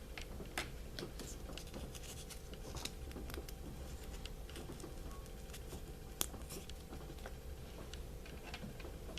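Small plastic toy handled by hand: irregular light clicks and scratches, with one sharper click about six seconds in, over a steady low hum.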